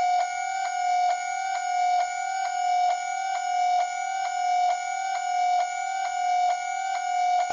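Tense sound-effect track: a steady high electronic tone with faint overtones, under sharp even ticks about three times a second, like a clock.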